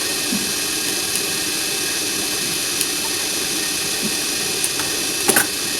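Steady hissing background noise, with a few faint clicks and a brief louder clatter about five seconds in.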